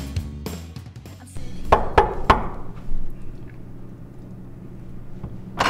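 Background music fades out, then a quick series of knocks on a wooden room door. A sharp click comes right at the end as the door begins to open.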